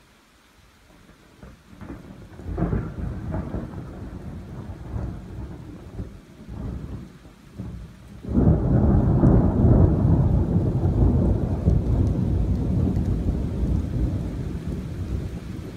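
Thunder rolling in a thunderstorm. A low rumble builds over the first couple of seconds, breaks into a sudden loud peal and rolls on unevenly. About eight seconds in a second, louder peal comes in and rumbles on, slowly easing.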